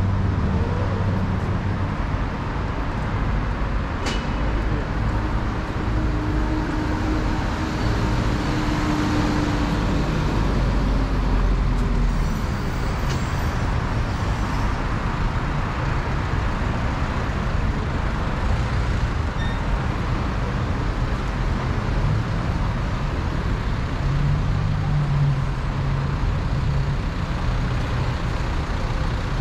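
Steady city street traffic: cars and trucks running and passing along the road, with a low engine hum throughout. A passing vehicle's engine note stands out for a few seconds near the middle.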